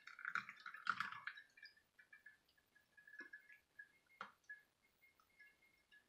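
Hot water poured in a thin stream from a glass measuring cup onto coffee grounds in a stainless-steel pour-over filter, faintly trickling for the first second or so, then a few soft drips and two light taps.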